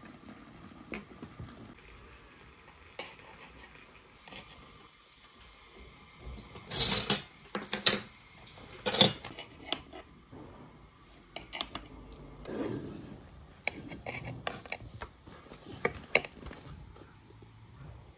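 Tableware clinking and clattering: tea glasses, saucers, plates and a knife knocking against one another on a table, with scattered sharp clinks and a louder burst of clatter about seven to nine seconds in.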